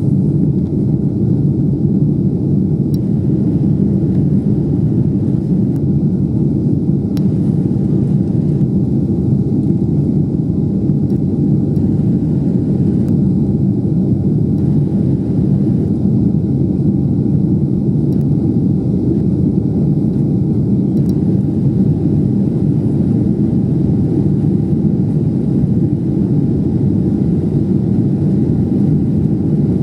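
Boeing 777-300ER's GE90-115B engines running at climb power, heard from inside the cabin as a steady, deep roar with rushing air, plus a faint steady whine above it.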